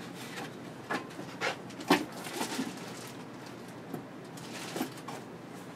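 Paper and cardboard rustling, with a few light clicks and knocks, as items are handled in an open cardboard shipping box.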